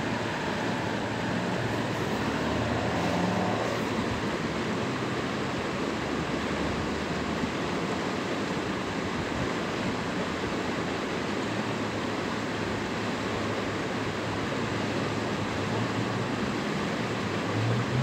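Fast-flowing water rushing past rocks and bridge piers, a steady, even rush. A faint low hum comes and goes underneath, strongest about three seconds in.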